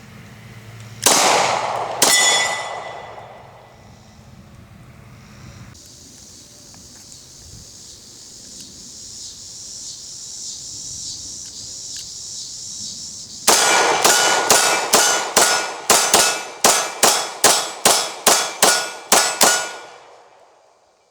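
Glock 22 .40 S&W pistol shots at steel targets, each shot followed by the ring of the struck steel plate: two shots about a second apart, a pause, then about fifteen shots fired in quick succession, two to three a second.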